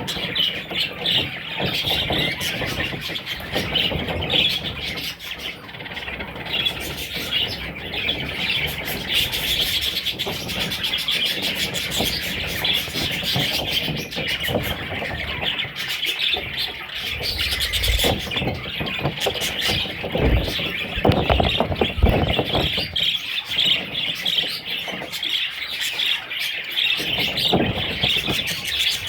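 Budgerigars chirping and chattering continuously, many calls overlapping, with occasional low thumps and rustling.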